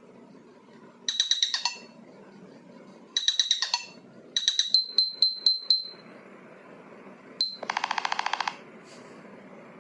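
Short runs of rapid electronic clicks ringing on one high tone, then a single click and a fast buzzing run of pulses near the end: a smartphone's interface tones.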